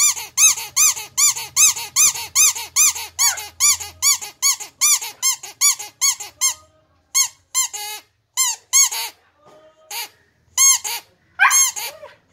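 Rubber squeaky toy squeezed by hand over and over: short squeaks that each rise and fall in pitch, about three a second, coming slower and more irregularly after about six seconds.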